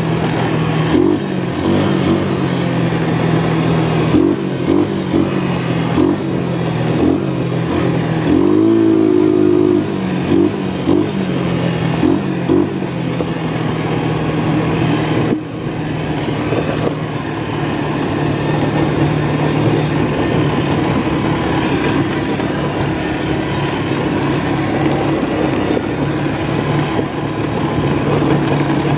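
ATV engine running while being ridden, its pitch stepping up and down with the throttle, with a brief rev about nine seconds in. From about halfway it holds a steadier note.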